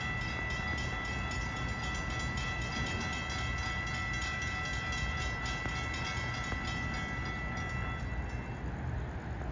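Passenger train passing, with a steady rumble. Over it a steady high-pitched set of tones sounds, together with a rapid regular ticking, and both stop about eight seconds in.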